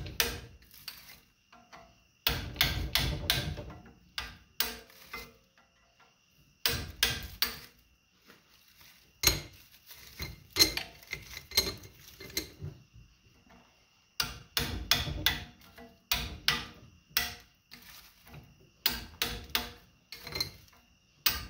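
Hammer striking a screwdriver or chisel to drive copper bars out of a heavy welder-generator armature. The metallic strikes come in quick bunches of three to six, every second or two, with short pauses between.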